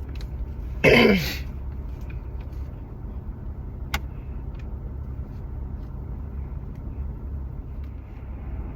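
Car cabin noise from driving: a steady low road and engine rumble. A brief loud burst of a person's voice about a second in, and a faint click near four seconds.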